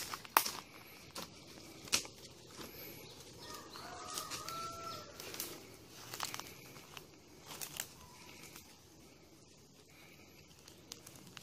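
A garden hoe chops into soft soil a couple of times near the start, then hands scrape and press loose earth around a newly planted seedling, with a few more soft knocks. A faint bird call comes about four seconds in.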